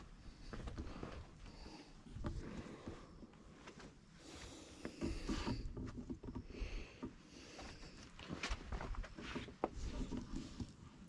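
Footsteps of a hiker walking on a trail: irregular thuds and scuffs, with a brief rushing hiss about four seconds in.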